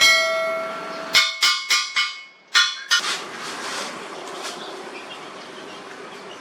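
A hammer striking steel about seven times in the first three seconds, each blow ringing on with a clear metallic tone, the first one loudest and longest. A steady noise without blows follows.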